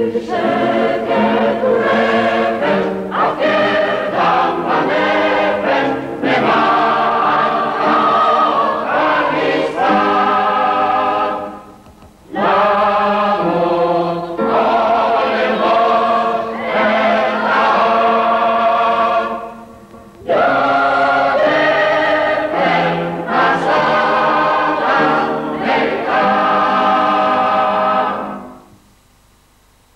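A choir singing, in long phrases with two short breaks about 12 and 20 seconds in, and stopping shortly before the end.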